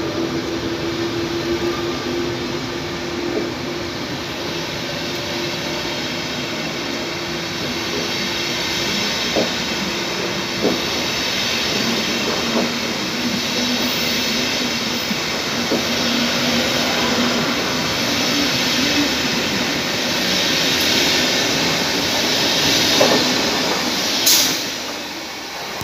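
Locomotive-hauled Flixtrain passenger coaches roll past as the train pulls away. There is a steady rumble of wheels on rail, with occasional clacks over rail joints and a brief sharp squeal near the end, and the sound fades as the last coach goes by.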